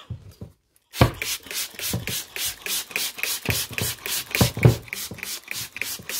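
Trigger spray bottle squirting onto a cloth ham bag in a fast run of short hissing sprays, about five a second, starting about a second in, with the fabric rustling as it is handled.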